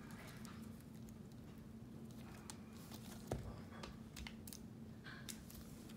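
Faint rustling and crinkling of an LOL Surprise toy ball's wrapping being handled and peeled, with a few light clicks and a soft knock about halfway through.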